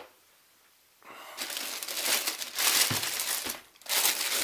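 Packaging crinkling as it is handled and pulled off a new robot vacuum, starting about a second in with a brief pause near the end.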